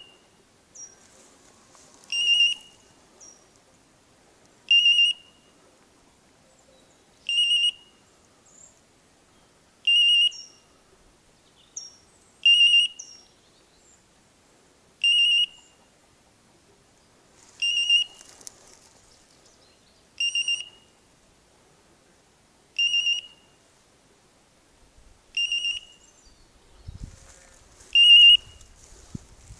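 Hunting dog's beeper collar sounding a short warbling electronic beep about every two and a half seconds, twelve times. The slow, even interval is the beeper's running mode, signalling that the English setter is moving and not on point.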